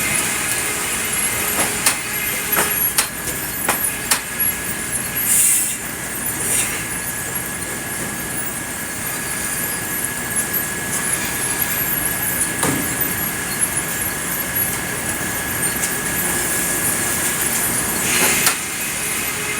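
Sawmill machinery running steadily while cutting red pine, with a thin steady whine. Several sharp knocks and clunks come in the first few seconds, and short hissing bursts come about five seconds in and again near the end.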